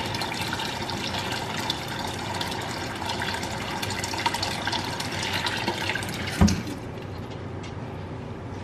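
Kitchen tap running water into a cooking pot, filling it. A single knock comes just before the water stops, about two-thirds of the way through.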